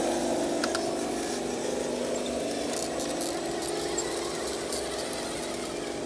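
Electric motor and gears of a radio-controlled truck whining steadily, with a few scattered clicks.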